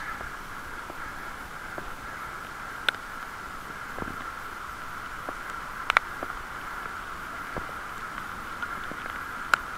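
Bicycle in motion: a steady whirr runs throughout, with a few sharp clicks, about one every three seconds.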